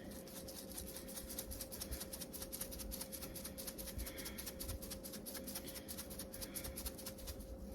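Roasted garlic seasoning being shaken out of a spice jar: a fast, continuous run of light ticks and rattles, about ten a second, over a faint steady hum.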